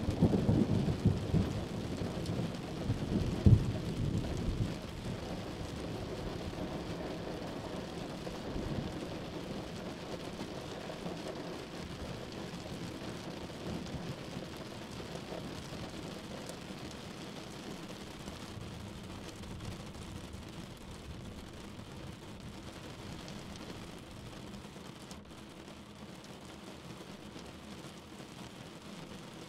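Thunder rumbling over heavy rain. The rumble is strongest in the first few seconds, with one louder boom about three and a half seconds in, then dies away. The rain goes on steadily and slowly fades.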